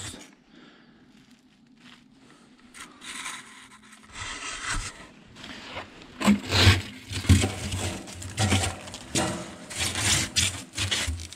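Scraping, rubbing and crinkling as gloved hands handle and break up an old papery wasp nest on a metal grate, with dull knocks mixed in. Quiet at first, growing busier in the second half.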